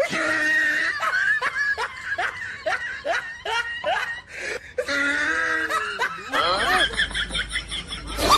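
Laughter in short repeated bursts, about three a second, changing to longer drawn-out sounds over a low hum near the end.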